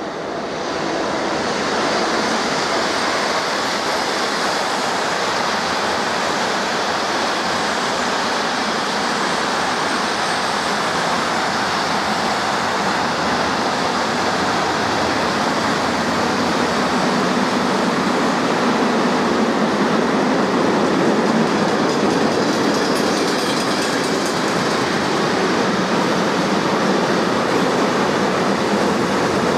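Freight train with tank wagons passing through, the steady rolling noise of its wagons' wheels on the rails, rising over the first couple of seconds and then holding.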